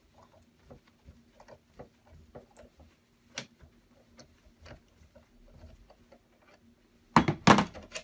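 Small metal clicks and ticks as a Facom U14A small bearing puller is worked and lifted off a washing machine motor's splined shaft after its heat-fitted pulley has come free, with one sharper click a few seconds in. Near the end comes a short, louder clatter of metal being set down.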